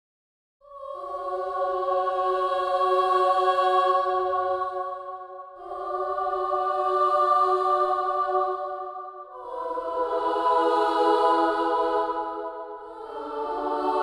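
UVI Orchestral Suite's sampled children's choir singing four sustained chords in turn, starting about a second in, each chord swelling up and easing off before the next. The swells are played with the modulation wheel controlling the dynamics.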